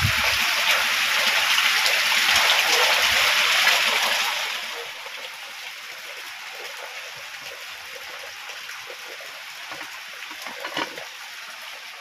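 Heavy rain pouring onto muddy ground and splashing into puddles. It is loud for the first four seconds or so, then drops to a quieter steady patter. A short knock comes near the end.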